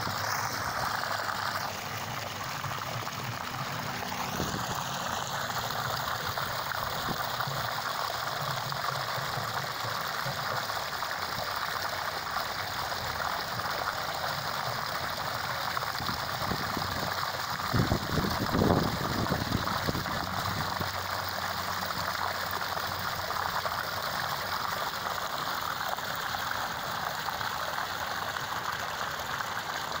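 Steady splashing and gurgling of water running into a pond, churning and bubbling over stones. A brief low rumble just past the middle.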